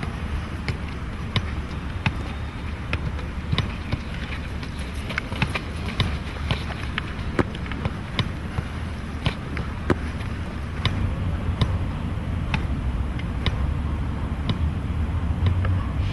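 A football struck back and forth in a rally, with sharp short knocks about once or twice a second over a steady low rumble.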